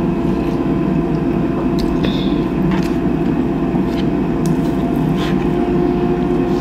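Steady hum of a running household appliance motor, holding a fixed tone, with a few light clicks of a fork and knife on a plate.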